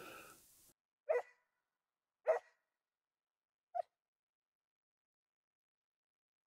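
A Drever hound's distant barking: three short single barks spaced a second or more apart, then quiet. The hound is giving tongue on a fresh scent track, which the hunter takes for a hoofed animal's rather than a hare's.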